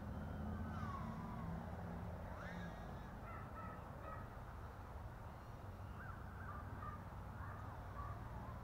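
ASUAV AWESOME F100 brushless micro FPV quad flying at a distance, its propellers giving a faint buzzing whine that rises and falls in pitch as the throttle changes.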